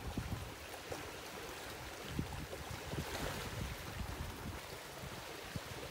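Running water, with irregular low rumbles underneath.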